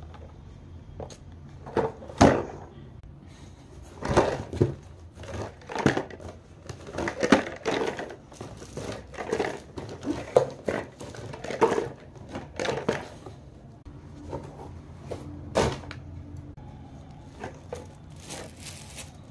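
Cardboard box handled and plastic-film-wrapped PET canisters taken out and set down: irregular crinkling and rustling of plastic wrap, with scrapes and knocks of cardboard and plastic jars. The handling turns to lighter rustling of the wrap near the end.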